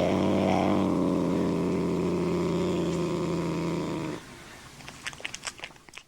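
Angry cat's drawn-out growling yowl, held mostly on one pitch with a brief rise about half a second in, stopping about four seconds in. A quick run of short, sharp clicks follows near the end.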